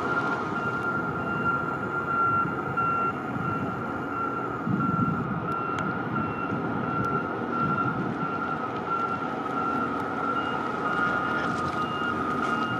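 A machinery warning alarm beeping over and over, a high pulsing tone, over the steady low rumble of heavy port machinery.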